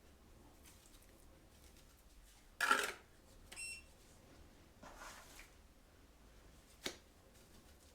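Intermittent scrapes and knocks of hand-tool work on a new concrete hearth: a loud scrape or knock about three seconds in, a short high beep half a second later, softer scraping around five seconds, and a sharp click near the end.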